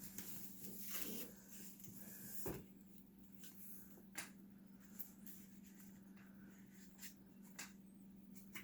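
Paper and cardstock being handled: soft rustles with a few light clicks and taps, over a steady low hum.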